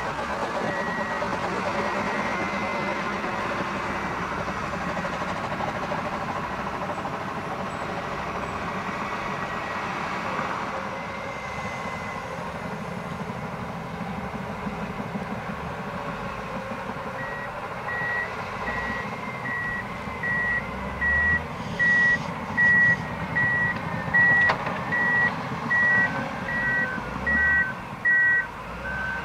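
Komatsu bulldozer's diesel engine running under load. From about two-thirds of the way in, a reversing alarm beeps steadily a little more than once a second and becomes the loudest sound, and a second, lower-pitched reversing alarm joins it near the end.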